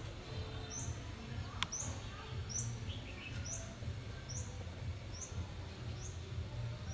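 A small bird repeating a short, high chirp about once a second, over a steady low hum. A single sharp click about a second and a half in.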